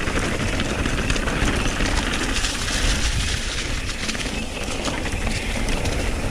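Mountain bike descending a dirt trail, heard from an on-bike or helmet camera: a steady rush of wind on the microphone and tyres on dirt, with constant fine rattling from the bike.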